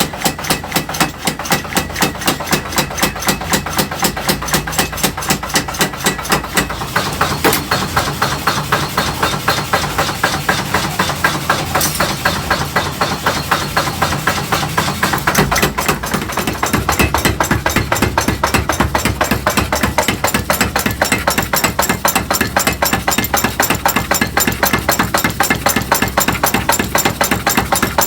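Steady, rapid hammering on metal while tongs are forged, about four blows a second without a break.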